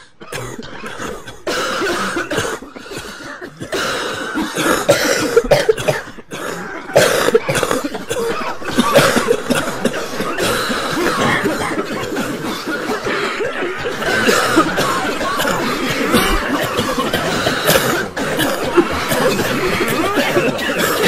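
A crowd of people coughing, many coughs overlapping with no pause between them.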